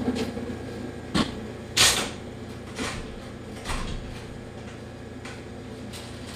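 A few short, light knocks and clatters about a second apart, over a faint steady background.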